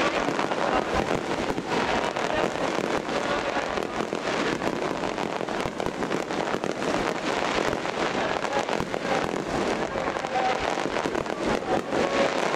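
Aerial firework shells bursting in a dense, continuous crackle of many rapid pops, with no single boom standing out.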